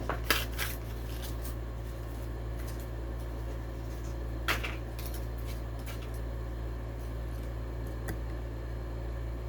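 Hot Wheels blister-card package being opened: a few short plastic-and-cardboard clicks and crackles in the first second, and another about four and a half seconds in, over a steady low hum.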